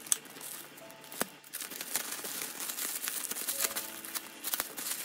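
Clear plastic bag crinkling and crackling as hands pull it open, getting busier about a second and a half in.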